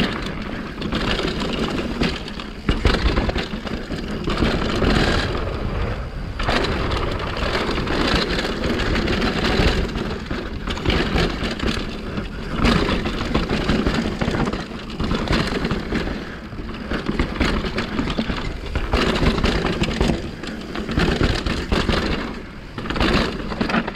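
Mountain bike riding fast down a dirt trail: a steady rush of tyres on dirt, broken by frequent knocks and rattles from the bike as it hits bumps.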